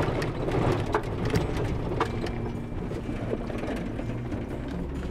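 Cabin noise of a Jeep Wrangler driving slowly over a rough dirt track: a low rumble of engine and tyres with scattered rattles and knocks from the jolting vehicle.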